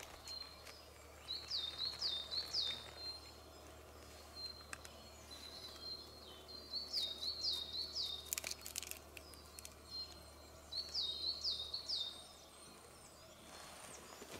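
A songbird repeating a short phrase of four or five quick, high chirping notes, three times with pauses between. A few sharp snaps of kindling about eight seconds in.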